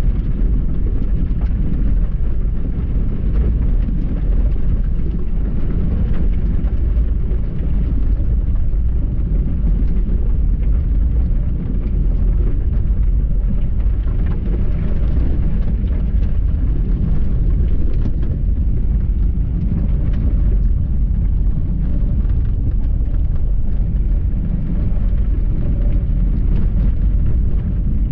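Car driving along a rutted dirt road: a steady low rumble of engine and tyres, with scattered faint knocks.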